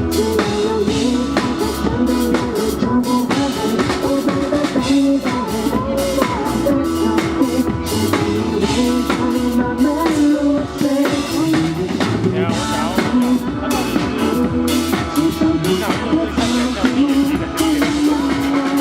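A pop song played live by a band, with a drum kit keeping the beat under held melody notes.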